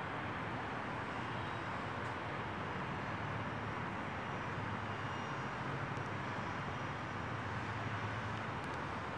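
Distant city traffic heard from high up: a steady rushing noise with a low hum underneath, unchanging throughout.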